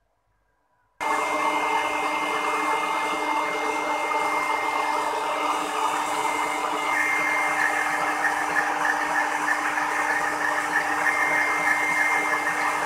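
Stand mixer switching on suddenly about a second in and running steadily at speed, a motor whine as its wire whisk beats eggs and sugar in a stainless steel bowl.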